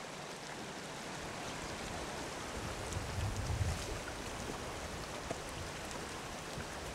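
Steady rush of water, swelling briefly about three seconds in with a low rumble.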